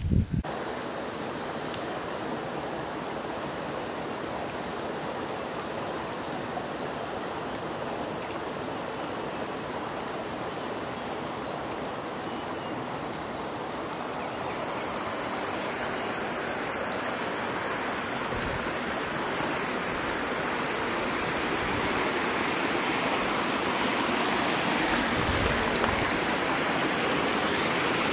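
Steady rushing of flowing water from a stream, growing gradually louder.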